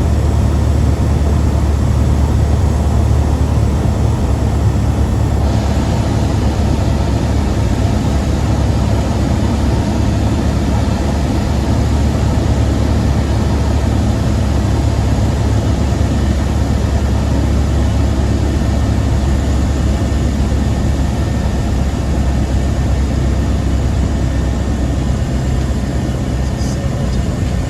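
A Cessna 172R's four-cylinder Lycoming engine and propeller running steadily during the landing approach, heard from inside the cabin as a loud, even drone.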